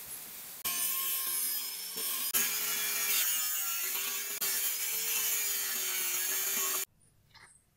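Angle grinder with a thin cutoff disc cutting notches into a steel knife blank made from a bearing. The motor whines steadily, its pitch wavering as the disc bites, and the sound cuts off suddenly about seven seconds in.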